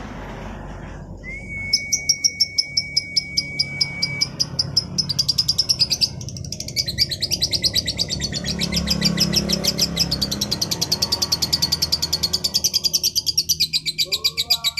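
Female lovebird chattering in a long, unbroken run of rapid high chirps that quicken after a few seconds. A steady whistled note sounds beneath the chirps for about three seconds near the start.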